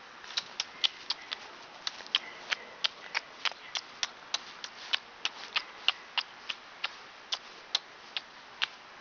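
Light, sharp, irregular clicking, about three clicks a second: dog claws tapping on a hard floor as the dogs come when called.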